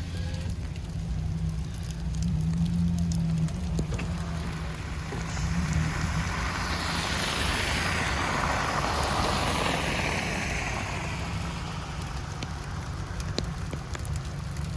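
Car driving on a snowy road, heard from inside the cabin: a steady low engine and road drone, with a rushing swell of tyre and slush noise that builds about six seconds in and fades a few seconds later.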